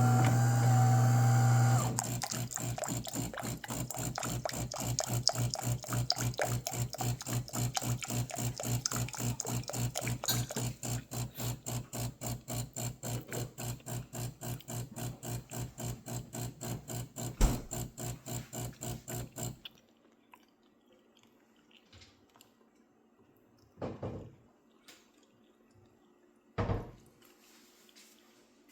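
DeLonghi Magnifica Evo espresso machine's water pump humming steadily, then pulsing in an even rhythm, about three pulses a second, as it pushes water through during its cleaning (descaling) cycle. It stops abruptly about two-thirds of the way in, and a couple of short knocks follow.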